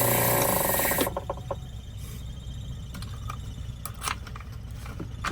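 Key duplicating machine cutting a key, then switched off about a second in and spinning down with a few slowing ticks. Light metal clicks and taps follow as the key is handled.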